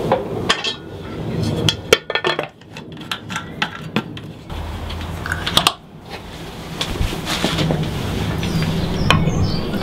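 Sharp metal clinks and knocks as the steel rocker cover is fitted back onto the Lister FR2 diesel engine's cylinder head and handled, over a low steady rumble.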